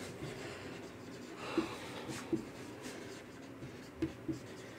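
Marker pen writing on a whiteboard: faint scratchy strokes with a few short clicks as the tip touches the board, the clearest about one and a half seconds in and again around four seconds in.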